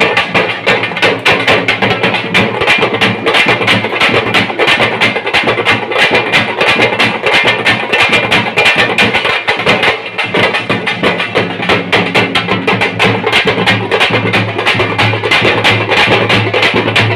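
A troupe of thappu (parai) frame drums beaten with sticks, playing together in a loud, fast and unbroken rhythm.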